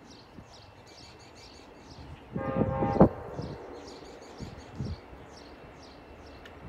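Birds chirping rapidly and continuously. About two and a half seconds in, a louder pitched sound lasts under a second and ends in a sharp knock.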